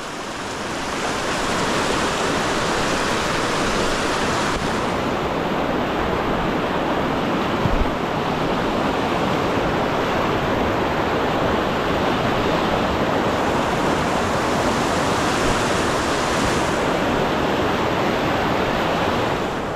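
Fast river water rushing steadily, a constant loud hiss of current with no break.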